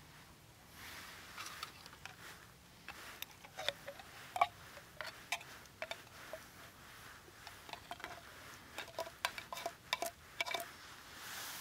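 Irregular light metallic clicks and clinks from a small backpacking gas stove and its canister being handled and fitted together.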